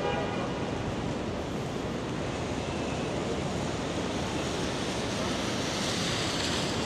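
Steady hiss of rain and city traffic on a wet street, its higher hiss growing brighter near the end.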